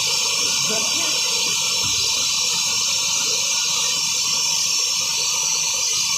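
A steady, even hiss that runs unbroken at one level.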